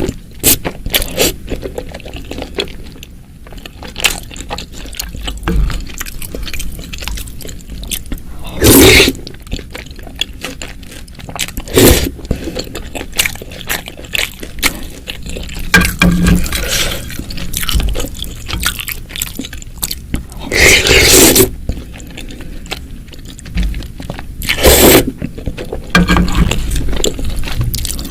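Close-miked wet eating sounds from a bowl of spicy meatball and noodle soup: constant small clicks and squishes of chewing, broken by about five louder slurps of noodles and broth.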